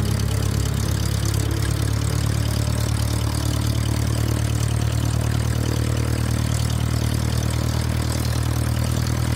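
Piston engine of a light single-engine airplane running at a steady, even speed, a loud deep drone that does not change.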